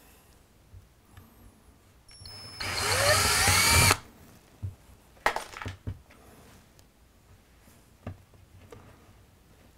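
Cordless DeWalt drill running for about a second and a half, its motor whine rising in pitch as it bores a pilot hole through drywall. A few small clicks and knocks follow.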